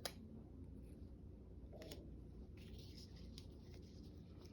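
Near silence: quiet room tone with a few faint clicks and light handling sounds of craft paper and glue being worked by hand.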